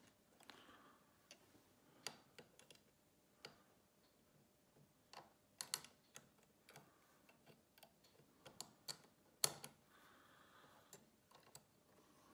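Faint, irregular clicks and taps of steel tweezers on the brass parts of a clock movement while the pallet bridge is being fitted, with the sharpest click about three-quarters of the way through.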